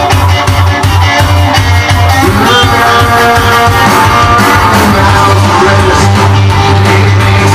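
Rock and roll record playing with a steady beat, guitar and a singing voice coming in about two seconds in.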